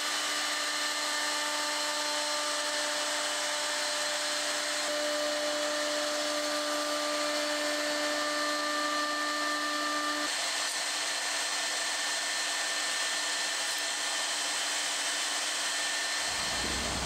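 Overhead pin router running at high speed and cutting into walnut: a steady motor whine over the hiss of the cut. The whine's tones change about ten seconds in, and a low rumble joins near the end.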